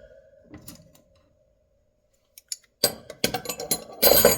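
Steel hand wrenches clinking against each other as they are handled and laid out. One clink leaves a ringing tone that fades over about two seconds, and a quick run of clinks and clatter fills the last second and a half.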